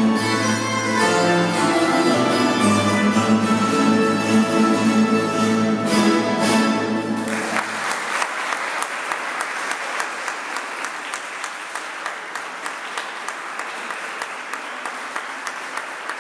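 A Spanish plucked-string ensemble of laúdes and guitars plays the closing bars of a pasodoble, ending on final strummed chords about seven seconds in. The audience then applauds steadily.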